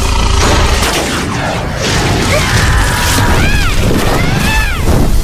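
Loud cartoon sound effects: a continuous rumbling, crashing din, with a few short squeals that rise and fall in pitch in the second half.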